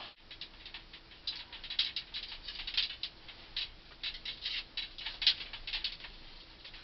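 Soft copper ground-loop tubing handled by gloved hands at its coil, giving light, irregular clicks, taps and scrapes.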